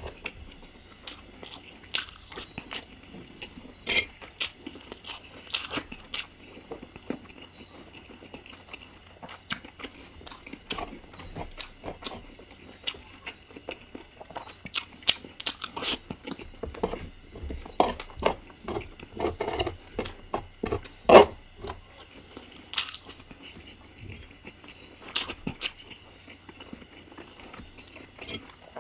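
Close-miked eating sounds: wet chewing and biting, with irregular sharp crunches and clicks of mouth and teeth working through chicken curry, thickest and loudest about two thirds of the way through.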